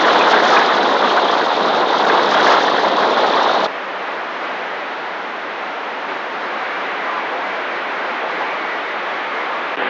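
CB radio static: a steady hiss from the radio's speaker on an open channel between transmissions, dropping suddenly to a quieter hiss about three and a half seconds in.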